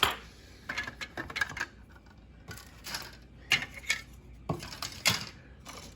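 Plastic model kit parts being handled: irregular hard clicks and light clacks of plastic pieces and sprues knocking together, a quick cluster about a second in, then single clicks every second or so.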